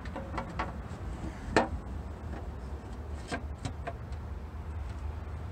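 A few short clinks and knocks of parts being handled by hand at the underside of the transmission, the loudest about a second and a half in, over a steady low rumble.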